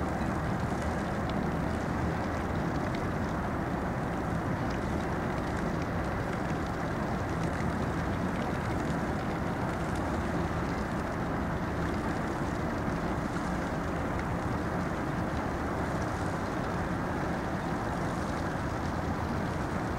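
Steady rumble of a small gravel-carrier cargo ship's diesel engine as the ship passes close, under way at an even pace.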